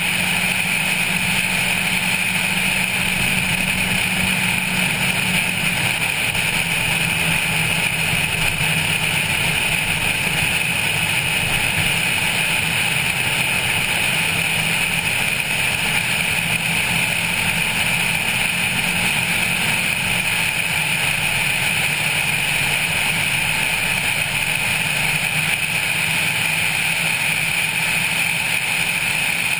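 Honda Civic 1.5 at track speed, heard through a roof-mounted camera: a steady rush of wind and road noise over a low, even engine note. The engine note drops slightly about six seconds in.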